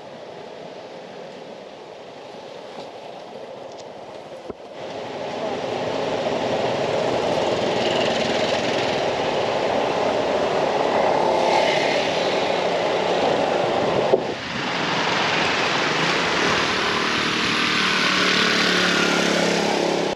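Busy city road traffic: a low steady hum of passing cars at first, then, from about four and a half seconds in, a much louder steady noise of vehicle engines and wind rush, as heard while moving along in traffic.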